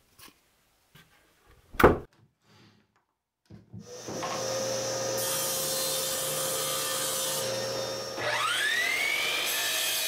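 A single knock about two seconds in, then a table saw running steadily from about four seconds in. A little after eight seconds a miter saw motor starts and spins up with a rising whine.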